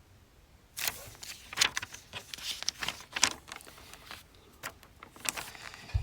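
Clicks and rustles of objects being handled on a study desk, pens and paper among them, in an irregular run starting about a second in, with a soft thud at the end.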